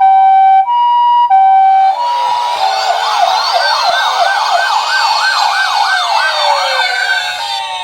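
Toy ambulance's electronic hi-lo siren, two tones alternating about every two-thirds of a second in the Japanese ambulance pattern. About two seconds in it gives way to several overlapping rising-and-falling siren wails. The two-tone pattern returns near the end and starts to fade.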